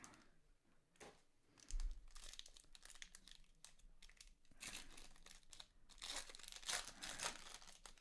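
Trading card pack wrappers crinkling and tearing as packs are opened by hand, in bursts of rustling with a few louder crackles about two, five and six to seven seconds in.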